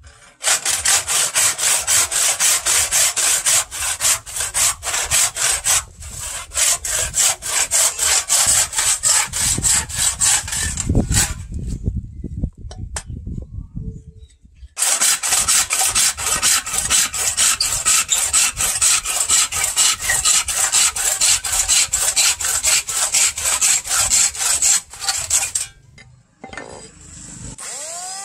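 Handsaw cutting through a wooden board in quick, even back-and-forth strokes, stopping for a few seconds midway and then going on. Right at the end an electric hand planer's motor starts up with a rising whine.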